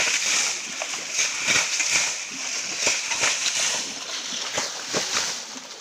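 Water being scooped from a shallow stream pool with a metal basin and flung aside, splashing down again and again, about one or two splashes a second, irregularly spaced.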